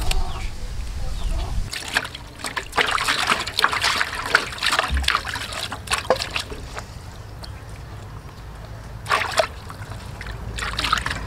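Water sloshing and splashing in a metal basin as hands rinse a gutted duck carcass, in irregular bursts, heaviest through the middle and again twice near the end.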